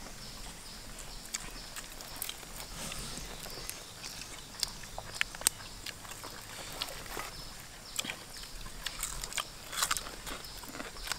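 Close-up eating sounds: people chewing and smacking their lips as they eat with their hands, heard as irregular sharp clicks and smacks, a few louder ones around the middle and just before the end, over a faint steady hiss.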